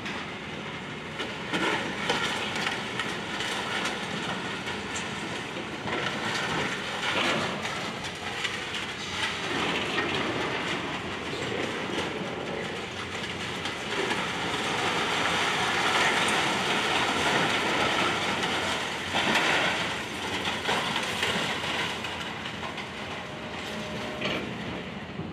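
Demolition excavator at work, with a continuous irregular clatter of knocks and crunching debris and scraping metal.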